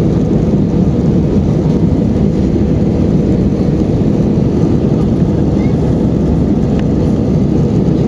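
Steady low rumble of an Airbus A320-200's engines and airflow, even in level and unchanging in pitch.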